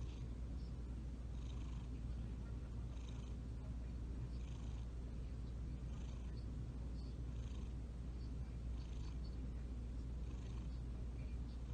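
Domestic cat purring steadily while kneading, with a soft scratchy rustle coming back about every second and a half.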